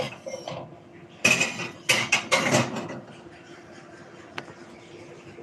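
Kitchenware being handled: a cluster of short, loud clattering bursts between about one and three seconds in, and a single click later, over a faint steady hum.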